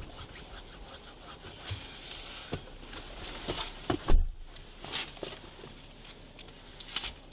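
Handling noise from a body-worn camera as the wearer moves: clothing and gear brushing against the microphone, with scattered knocks and one heavy thump about four seconds in.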